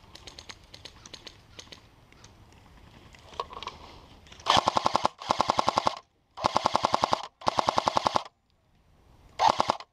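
Airsoft light machine gun firing full-auto in five short bursts of rapid, evenly spaced shots, starting about halfway in, after a few faint scattered clicks.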